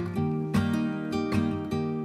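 Background music led by a strummed acoustic guitar, with strums about every half second over held chords.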